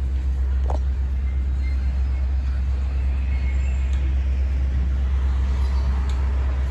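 Freight train of grain cars rolling slowly past, a steady low rumble throughout, with a single faint click under a second in.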